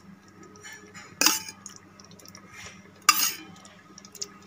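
Metal spoon knocking twice against a steel cooking pot, about two seconds apart, each with a short ring, as spoonfuls of fresh cream go into the gravy.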